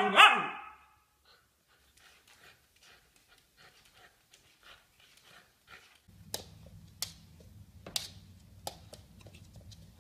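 A dog panting in quick, faint breaths, opening with a short loud cry that falls in pitch. About six seconds in, a low steady hum begins, with several sharp short sounds over it.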